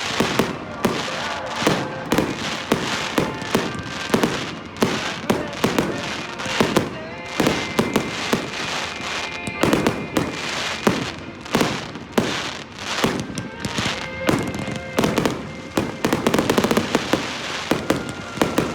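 Fireworks going off in a rapid, continuous string of sharp bangs and crackles, several a second.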